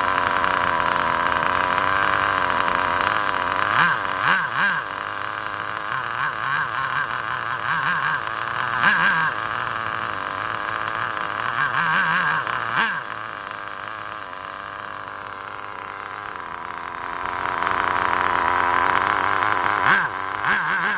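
Small two-stroke glow (nitro) engine of an HPI nitro RC car running with a high, steady buzz, blipped on the throttle in several short revs. It drops to a quieter idle about two-thirds of the way through, then picks up again near the end.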